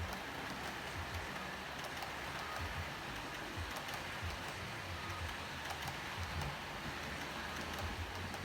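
H0-scale model train running on the layout: a steady hiss of wheels rolling on track over a low motor hum, with faint scattered clicks.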